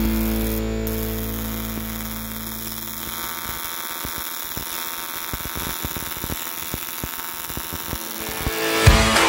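A welding arc on aluminum, buzzing steadily with irregular faint crackles. Music fades out over the first few seconds and starts again near the end.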